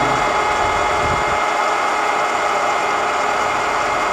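Doall radial drill's spindle head and gearbox running at steady speed: an even mechanical whir with steady gear-whine tones.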